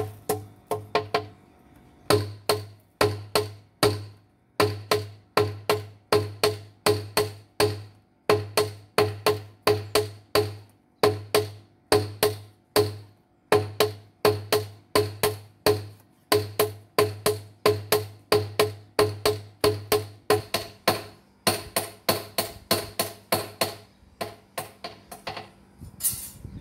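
Hand forging of a golok (machete) blade: a hammer striking the steel on an anvil in ringing clangs, about two to three blows a second, in runs broken by short pauses. A brief hiss near the end.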